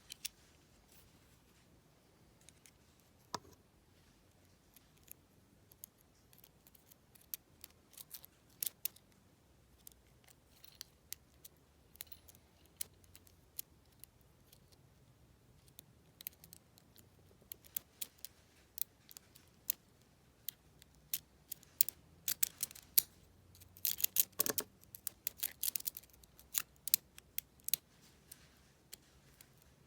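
Lock pick clicking and scraping against the pin stack inside a deadbolt's keyway, with a tension wrench at the bottom of the keyway. Scattered small metallic clicks, which thicken into a quick run of clicks about three quarters of the way in.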